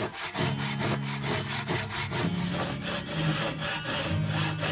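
Japanese pull saw cutting through wood by hand, in quick, even rasping strokes about four a second.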